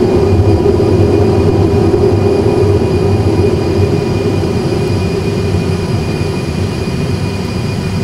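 Airbus A320 cockpit noise in the initial climb at takeoff thrust: a steady rumble and hum of the engines and airflow, with a few thin steady tones above it. It eases slightly over the second half.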